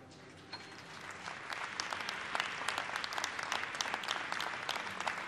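Audience applause breaking out as the last piano notes die away, building within a second or two to steady, dense clapping.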